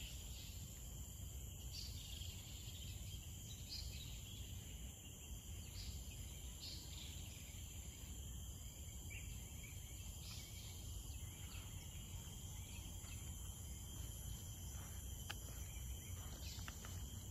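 Faint outdoor ambience of a steady, high insect drone over a low hum of background noise, with a few light ticks near the end.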